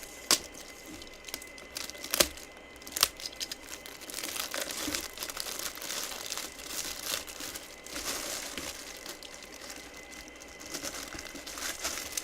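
Packaging crinkling and tearing as a boxed football helmet is unwrapped by hand, with three sharp snaps in the first three seconds.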